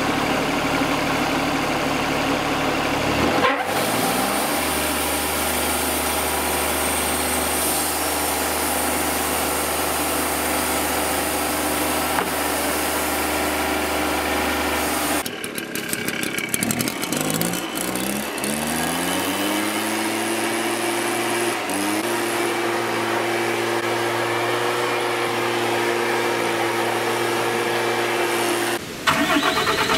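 Wood-Mizer portable band sawmill running as it saws walnut logs: the engine runs steady, speeds up with a rising pitch about three and a half seconds in, dips, and rises again around the middle before holding steady under the cut.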